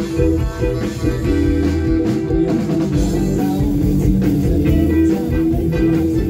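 Live rock band playing through a PA: electric guitars holding sustained notes over bass guitar and a drum kit.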